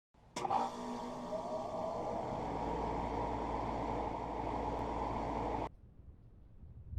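HVAC unit starting with a click, then running with a steady mechanical hum and whir. It cuts off abruptly a little before the end.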